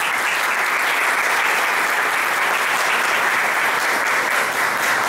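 Audience applauding: many hands clapping at a steady level, starting suddenly.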